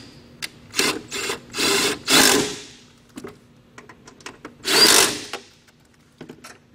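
Power driver tightening the battery box bolts, running in several short bursts with small clicks between them.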